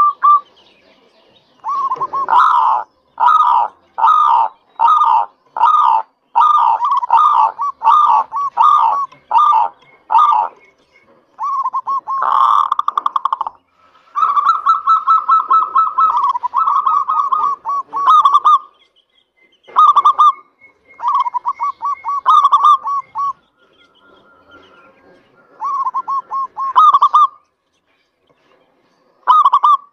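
Zebra dove (local perkutut) cooing: a run of short, evenly spaced coos, a little more than one a second, followed by longer trilled phrases and short bursts with pauses between them.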